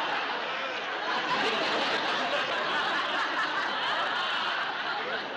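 Studio audience laughing after a joke, one long laugh that tapers off near the end.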